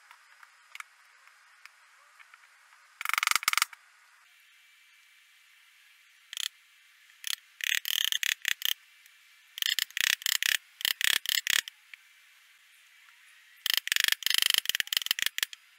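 Rapid rattling clicks of the metal rods and wooden frame of a coat rack being worked together during assembly. They come in several short runs, the loudest about three seconds in and again near the end.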